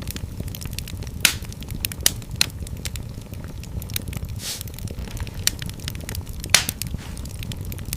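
Wood fire in a fireplace crackling steadily, with many small snaps and a few louder pops, over a low rumble of the flames.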